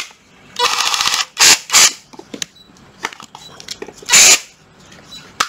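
Cordless drill run in short trigger pulls: a half-second buzzing run about half a second in, then a few brief bursts and clicks, and another short loud burst about four seconds in.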